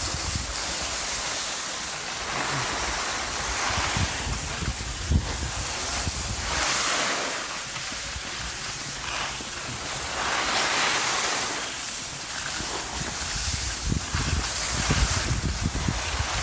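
Skis sliding and scraping over packed, tracked-up snow, a rushing hiss that swells and fades every few seconds as the skier turns, with wind buffeting the microphone.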